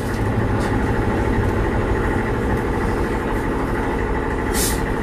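Blackpool Railcoach 680 heard from inside the saloon while under way: a steady running rumble of the tram's wheels and motors. A short hiss comes about four and a half seconds in.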